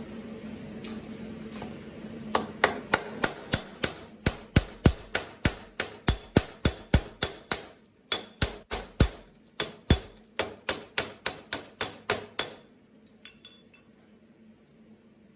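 Hammer striking sheet steel, working a Model T door patch panel: a fast, even run of sharp ringing blows, about three a second, starting about two seconds in, with a brief break near the middle, and stopping after some ten seconds.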